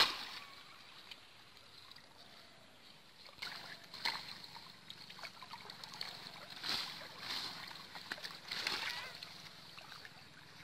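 Shallow pond water splashing and sloshing as a fine mosquito net is hauled up and gathered by hand. The first few seconds are fairly quiet, then come irregular splashes about once a second.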